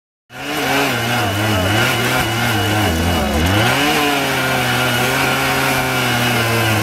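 Two-stroke petrol rail disc cutter running at high speed while its abrasive wheel cuts through a steel rail. It cuts in abruptly, and the engine pitch wavers and dips under the load of the cut about three seconds in, then holds steady.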